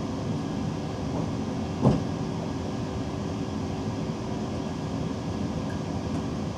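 Cab interior of a DB Class 425 electric multiple unit running along the line: a steady rumble of wheels on track with a faint hum, and a single knock about two seconds in.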